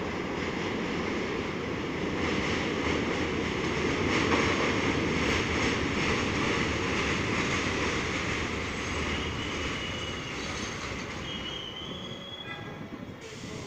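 R32 subway train pulling into an elevated station, its wheels running on the steel structure. The noise builds to its loudest about four seconds in, then eases as the train slows, with a thin wheel and brake squeal near the end as it comes to a stop.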